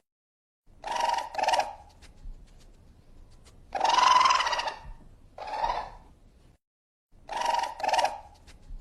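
Raccoon vocalising: a series of short, pitched calls, mostly in pairs, with one longer, louder call about four seconds in.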